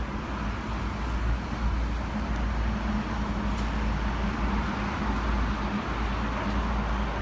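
A steady engine hum holding one pitch, over an even rumble and hiss of wind on the microphone.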